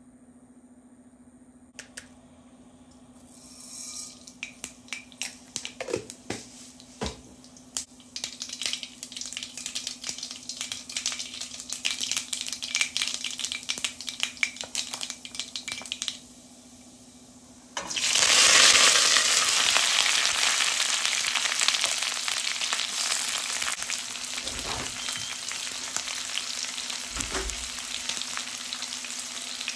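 Hot oil in a pan crackling with scattered sharp pops, then a sudden loud sizzle about eighteen seconds in as food goes into the oil, easing off gradually. A couple of dull knocks of a utensil near the end.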